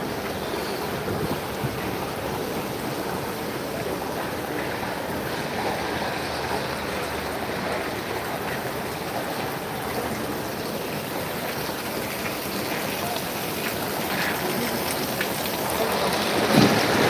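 Steady rain falling on floodwater. Near the end there is one brief thump.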